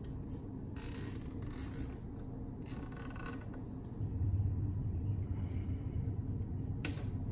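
Hands working a nylon zip tie tight, with rustling and scraping, and a low hum coming up about four seconds in. Near the end there is one sharp snip as flush cutters cut off the zip tie's tail.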